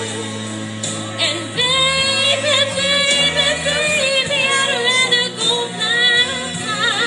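A woman singing into a microphone over a PA, with a slow soul backing track of held low notes. About a second in she comes in with long sustained, ornamented notes and wide vibrato, and the voice is the loudest thing.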